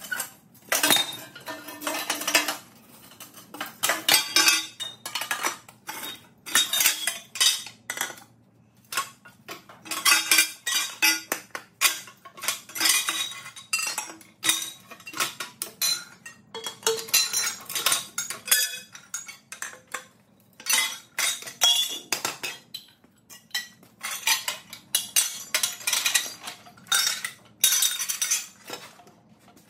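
Long-handled bolt cutters snipping through aluminum chair tubing, with cut pieces of tubing clattering onto a concrete floor: irregular metallic clinks and clanks in quick clusters with short pauses between.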